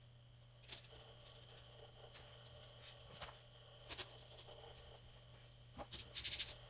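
Small metal clicks and taps of ring gear bolts being handled and threaded by hand into a differential's ring gear and carrier: a single click about a second in, another about four seconds in, then a quick run of clicks near the end.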